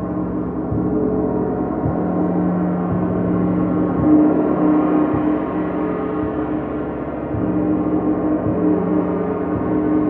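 Gong played continuously with soft, repeated mallet strokes about once a second, keeping up a dense, sustained ring of many overlapping tones.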